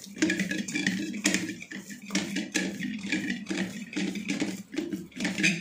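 Hands kneading and pressing wheat-flour dough in a steel bowl: repeated soft knocks and thuds of the dough and bowl, about two a second.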